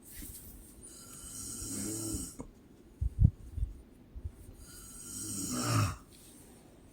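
A woman snoring in her sleep: two long snores, each building in loudness with a low, cow-like lowing tone. A short low thump falls between them.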